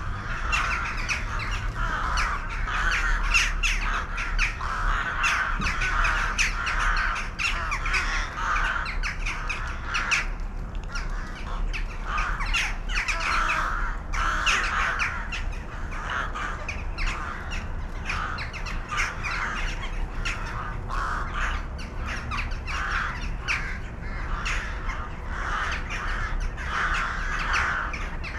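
A large flock of crows cawing, many calls overlapping without pause.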